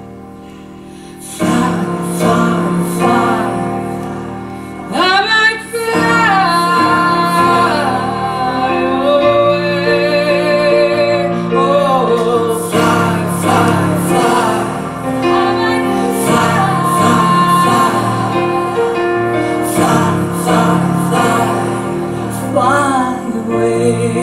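A song with a female lead vocal over sustained accompaniment, played back over Manger S1 active loudspeakers in a room.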